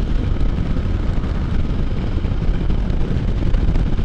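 Can-Am Spyder three-wheeled motorcycle cruising steadily at road speed: engine running with wind and road noise, heard from the handlebars.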